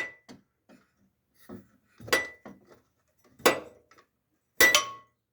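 Three ringing metallic clinks about a second and a quarter apart: a broken-off suspension rod on a Lexus NX 200, torn from its welded mount, striking the metal body. This loose rod is the cause of the car's suspension knock.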